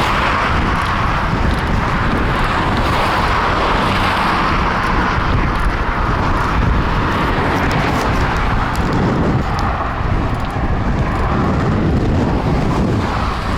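Steady, loud wind rushing over the microphone while riding a bicycle into a headwind.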